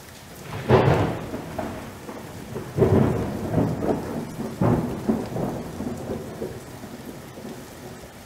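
Three thunder claps about two seconds apart over steady rain. Each clap rolls off, and the storm fades in the last few seconds.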